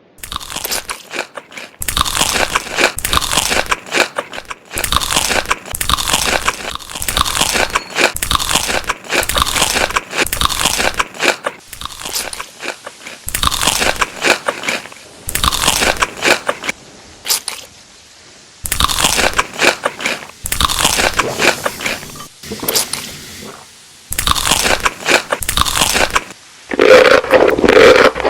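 Crunchy food being bitten and chewed: loud crisp crunches in runs of a few seconds, with short pauses between mouthfuls.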